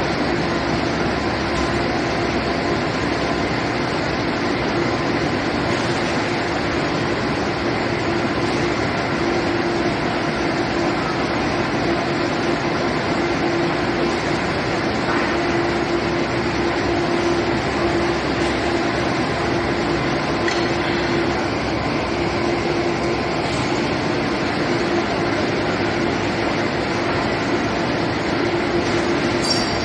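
Steady industrial machinery noise: an even roar with a constant low hum that does not change.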